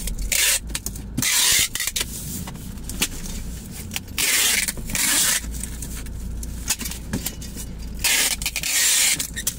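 Packing tape being pulled off a handheld tape dispenser and wrapped around a cardboard box: four loud tearing screeches of tape unrolling, the longest about a second each, with handling noise from the box between them.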